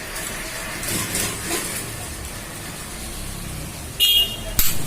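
Two sharp metallic knocks near the end, the first ringing briefly, over a steady low rumble: a ball bearing being tapped into place on a ceiling fan's shaft.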